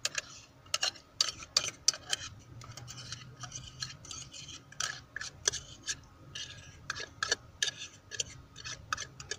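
A metal fork scraping tuna out of a tin can: a run of irregular scratchy scrapes and sharp metallic clicks against the can's rim.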